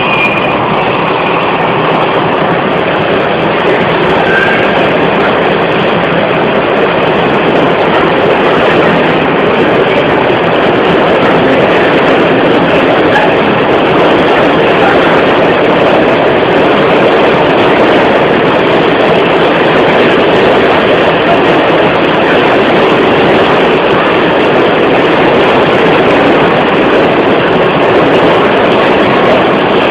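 Loud, steady rushing and rumbling noise of a moving vehicle, with no distinct events or rhythm.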